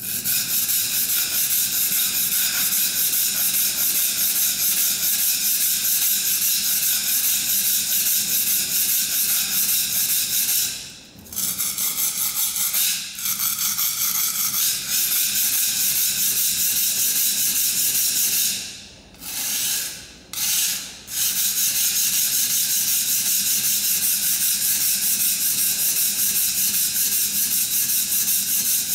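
Record No. 4 plane iron being rubbed back and forth freehand on an oiled Norton Crystolon silicon-carbide oil stone. The steel makes a continuous gritty scraping hiss on the abrasive, with a few brief pauses around the middle.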